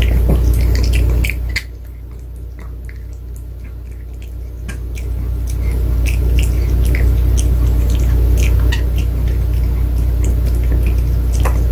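Pomeranian chewing a crunchy probiotic dog treat: sharp crunching clicks and wet mouth sounds, thinning out between about two and four and a half seconds in, over a steady low hum.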